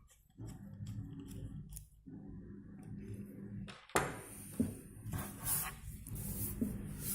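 Hands working on a laptop with small tools and parts: light clicks and scraping, a sharper knock about four seconds in, then a few seconds of rustling.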